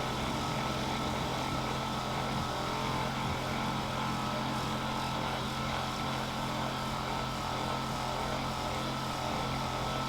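Electric massager motor running with a steady hum as it is worked over the glute muscles.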